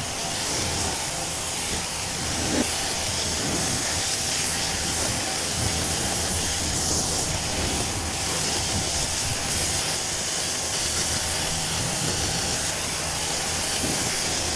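Kränzle 1122 TST pressure washer running at about 1,000 PSI, its lance spraying water through a 40-degree tip to rinse snow foam off a car's paintwork: a steady hiss of spray over the machine's low hum.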